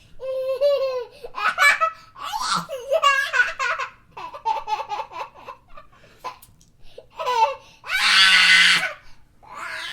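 A young child laughing in fits of giggles and belly laughs, in a run of bursts with short breaths between them, with a loud, high squeal of laughter about eight seconds in.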